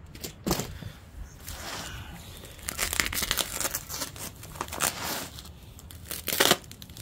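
Razor knife slicing and tearing open clear plastic wrapping, the plastic crinkling as it is pulled and handled, in a run of irregular rips with the loudest tear near the end.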